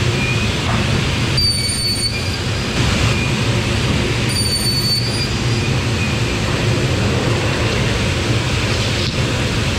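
Biesse Selco SK 4 panel beam saw running and cutting laminated sheet stock: a steady machine drone with two short high whines, about one and a half and four and a half seconds in.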